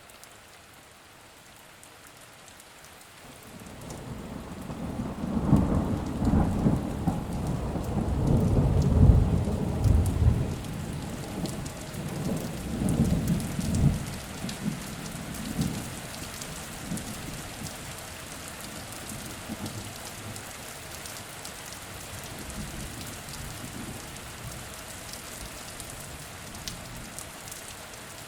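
Steady rain falling on leaves, with a long rolling rumble of thunder. The thunder builds a few seconds in, is loudest about halfway through and fades away, leaving only the rain.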